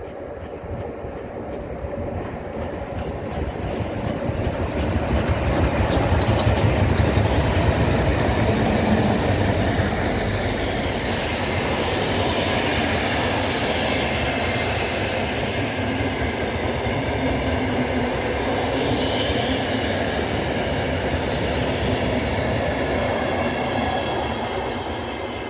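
Vintage passenger train passing at speed: it builds to its loudest as the smoking locomotive goes by a few seconds in. A long rake of old wooden-bodied coaches then follows, their wheels rumbling and rattling over the track, fading near the end.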